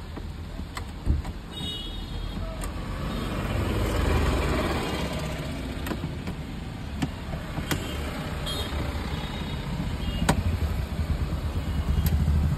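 Sharp clicks and scraping as a screwdriver works out the screws and plastic trim around a car's factory stereo in the dashboard, over a low steady rumble.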